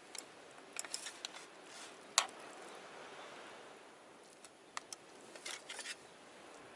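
Scattered light clicks and taps over a faint steady hiss, the sharpest click about two seconds in.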